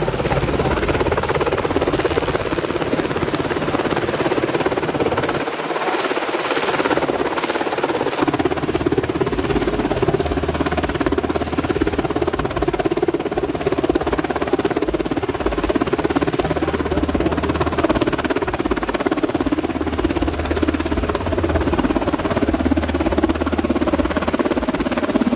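Steady mechanical engine rumble, with a brief rise of hiss a few seconds in.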